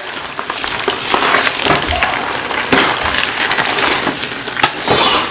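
Metal tongs tossing fettuccine in a large stainless steel pot: wet pasta being lifted and turned over a steady sizzle, with repeated clinks and scrapes of the tongs against the pot.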